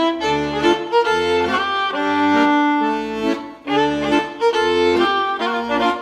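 Background music: a melody of quickly changing notes over low bass notes, with a brief dip about three and a half seconds in.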